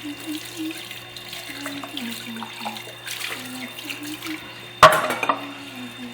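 Tap water running into a sink during dish washing, with small clinks and one sharp clatter about five seconds in. A faint tune of short stepped notes runs underneath.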